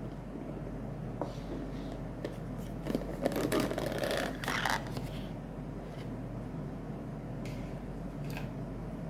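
Rustling and crinkling of something being handled, loudest from about three to five seconds in, with a few light clicks, over a steady low hum.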